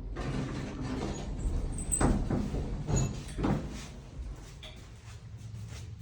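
Dover elevator's doors sliding with a run of sharp knocks about two, three and three and a half seconds in, the knocking whose cause is not known, then a quieter steady hum.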